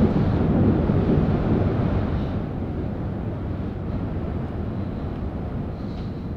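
Deep rumble of thunder, loudest at the start and slowly dying away.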